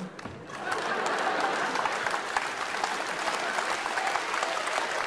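A large theatre audience applauding, building up in the first second and then clapping steadily.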